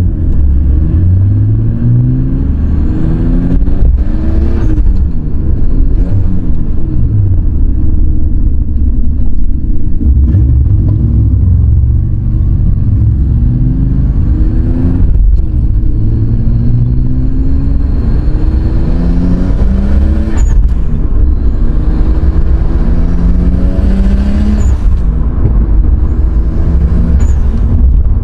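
Nissan RB25DET turbocharged straight-six with a custom exhaust and HKS muffler, heard from inside the cabin, pulling hard through the gears: the engine note climbs in pitch several times and drops at each upshift. A faint turbo whistle rises with the revs, and each lift for a shift brings a short blow-off valve release.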